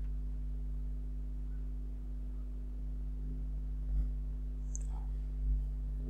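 Steady low electrical hum, with a couple of faint soft knocks about four and five and a half seconds in.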